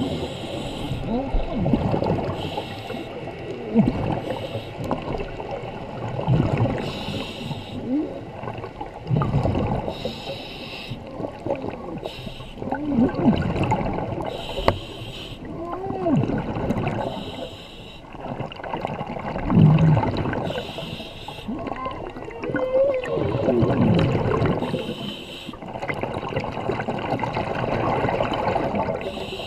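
Scuba regulator breathing heard underwater: exhaled bubbles gurgling and rumbling, with a short hiss of inhalation through the regulator every few seconds.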